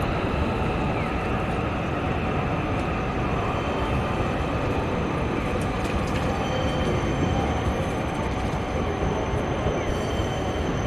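Strong wind buffeting the microphone in a steady rumble, over a Toyama Chihō Railway streetcar running on the tracks.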